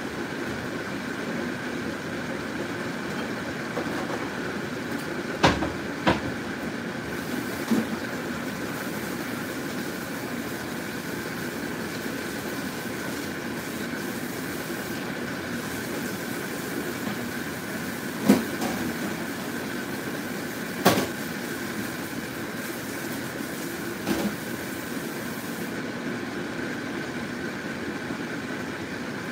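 Pot of broth simmering on a stove under a steady hum, with a few short sharp clicks or pops now and then.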